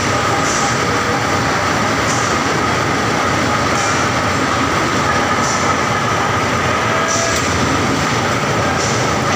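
Hot steel re-rolling mill running: a loud, steady machinery clatter with a steady whine, and a short high hiss that comes back about every second and a half as glowing bar runs through the rolling stands.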